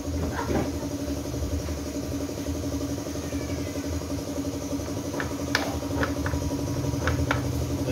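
Steady mechanical hum of a motor running, with a few light metallic clicks of hand tools in the last few seconds.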